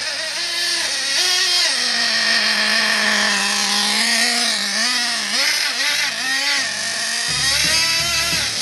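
Small motor of a radio-controlled snowmobile whining, its pitch rising and falling as the throttle is worked.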